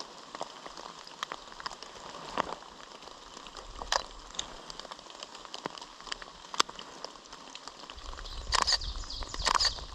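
Rain pattering, with scattered sharp ticks of drops throughout and a few louder scuffing bursts near the end.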